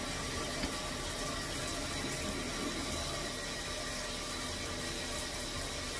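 Water running steadily in a tiled shower room, an even, unbroken rush of noise.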